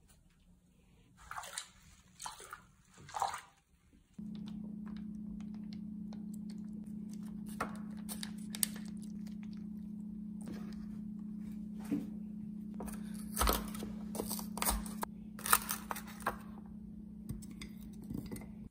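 Three short swishes of water in a bathtub. Then a steady low hum comes in suddenly about four seconds in, with scattered clicks and knocks from a plastic jelly mould being handled on a counter.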